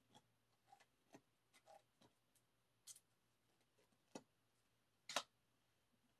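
Faint, scattered clicks and light taps of stiff photocards being handled and laid down on a bedspread, with the loudest tap about five seconds in.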